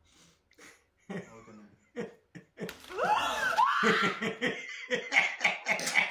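Soft, scattered small sounds at first; then, about three seconds in, a cry with sliding pitch followed by loud, hearty laughter.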